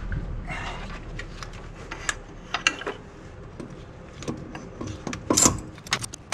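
Metallic clinks and knocks of tools and parts as a BorgWarner K27 turbocharger is fitted to the exhaust manifold of a 12-valve Cummins engine. The loudest knocks come about five and a half seconds in, over a low steady hum that stops at the same moment.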